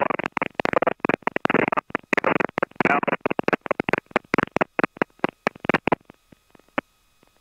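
Choppy, crackling noise over the helicopter's headset audio, cutting in and out many times a second, then dropping out about six seconds in to leave a faint electrical hum.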